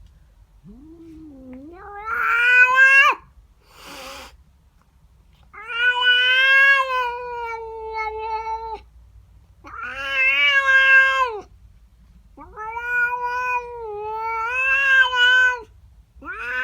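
A domestic cat yowling in a series of long, drawn-out caterwauls that waver in pitch, five in all. The first call rises steeply, and there is a short breathy hiss about four seconds in. It is a territorial cry at another cat that has come into her garden.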